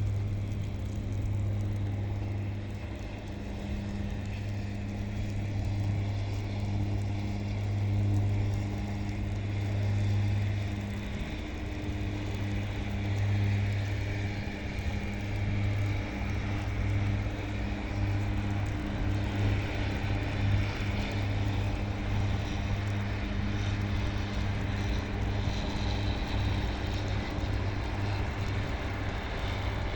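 Diesel engines of airport snowplough trucks running, a steady low hum with a faint hiss above it.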